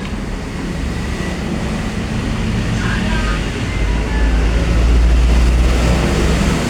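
A loud, steady low rumble that swells louder about four seconds in.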